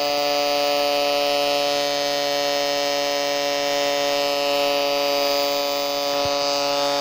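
Small LEGO electric motor running steadily, giving an even, unchanging hum with a string of overtones.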